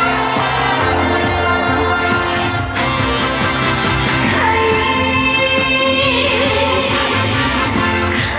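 Amplified live music: a sung melody over a band backing with a steady bass line.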